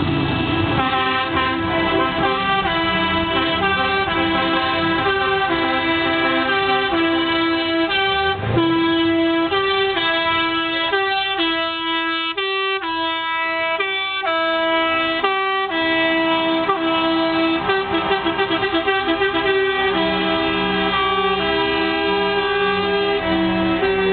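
Music: a melody of held notes stepping from pitch to pitch, with a run of quick notes about two-thirds of the way through.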